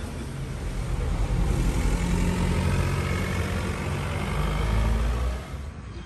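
A car driving past close by, its engine rumble building and then dropping away about five and a half seconds in.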